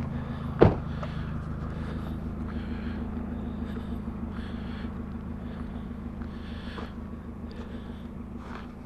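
A vehicle engine running steadily, slowly fading, with one sharp knock about half a second in and faint handling knocks and rustles after it.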